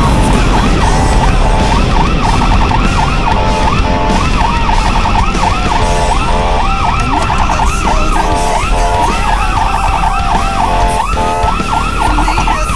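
Electronic emergency siren on a responding rescue medic unit, heard from inside the cab, cycling in fast repeated yelp sweeps with slower rising and falling wail glides, most clearly near the end. Engine and road noise run underneath.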